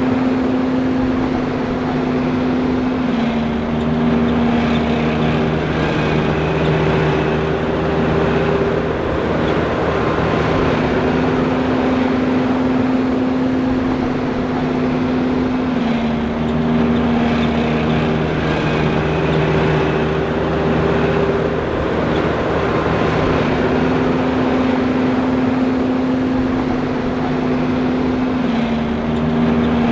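John Deere 5820 self-propelled forage harvester running steadily, a loud continuous machine drone. Its humming tones drop a little in pitch and come back up in a repeating cycle about every twelve seconds.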